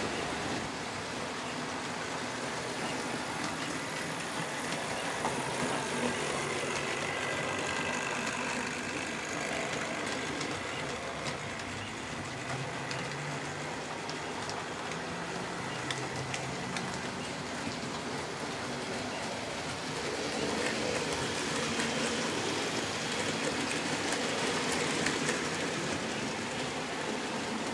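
OO gauge model train running along the track: a steady whirring and rolling noise from its electric motor and wheels, with scattered faint clicks, growing a little louder about two-thirds of the way through.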